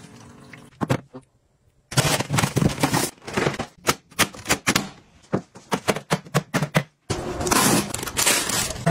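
Quick run of sharp plastic clicks and snaps as the hinged panels of a white plastic modular storage cabinet are folded and snapped into place. Near the end it gives way to crinkling clear plastic wrap being pulled off a handheld vacuum.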